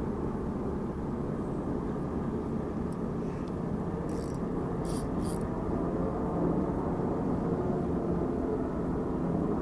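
Steady low rumble of traffic on the toll road, with a few short, faint clicks between about four and five seconds in.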